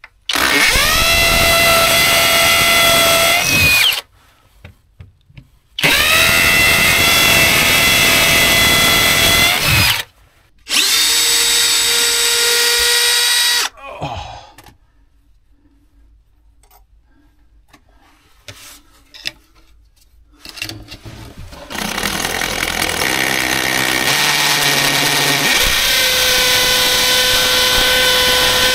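Cordless drill drilling holes in three long runs. Each run spins up with a rising whine, then holds a steady pitch. After a pause with a few small clicks, a longer continuous run starts near the end, with a long bit drilling into the concrete block foundation.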